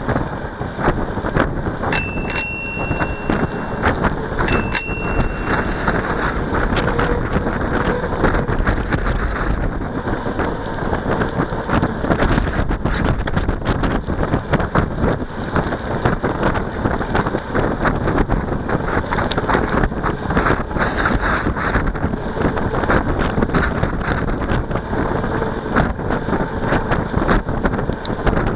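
Heavy wind buffeting a camera microphone while cycling, a steady rushing noise, with a bicycle bell rung about two seconds in and again about four and a half seconds in.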